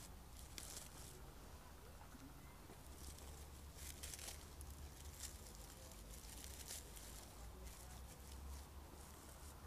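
Faint, scattered rustling and crackling of dried straw flowers and garden picks being pushed into a dry grapevine wreath base, over a low steady room hum.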